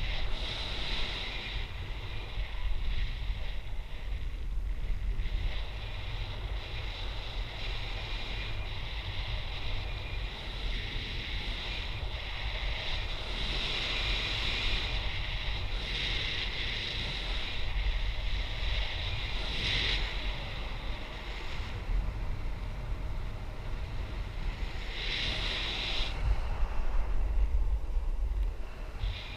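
Airflow rushing over the camera microphone of a paraglider in flight: a steady low buffeting rumble with a hiss above it that swells several times in gusts.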